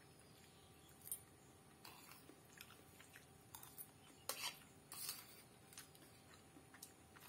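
Quiet fork clicks and scrapes on a ceramic plate, with soft chewing of mouthfuls of noodles; the loudest bits come about four to five seconds in.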